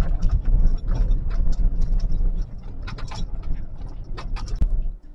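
Road noise inside a car driving over a bumpy gravel road: a dense low rumble with frequent rattles and knocks. The rumble eases about two and a half seconds in.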